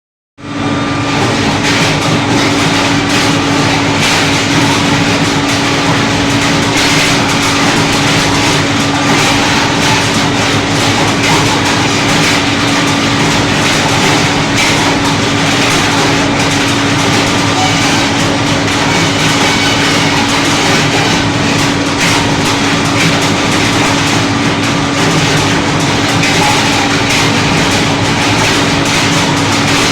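Electric areca nut dehusking machine running steadily: a constant motor hum under a dense, continuous rattle.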